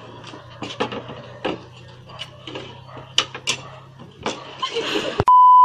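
Plates, cups and spoons clinking and knocking as they are set down on a wooden table, over a low steady hum. Near the end a loud, steady, high-pitched beep cuts in abruptly.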